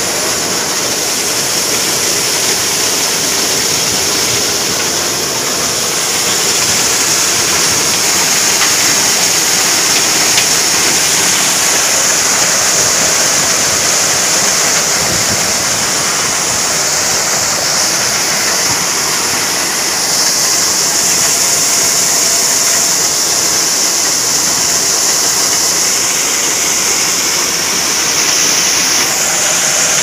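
Tractor-driven maize thresher running: a loud, steady rushing din with a strong high hiss as corn cobs are fed through it.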